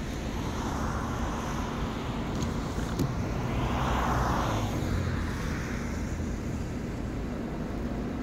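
Road traffic: a car passes, its noise swelling and fading about four seconds in, over a steady low rumble.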